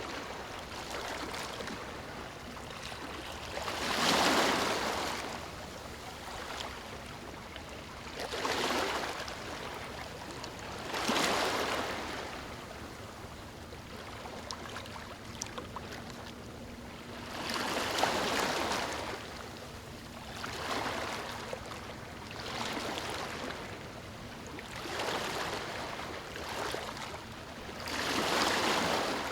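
Ocean waves breaking and washing in, a surge swelling and fading every few seconds over a steady hiss of surf.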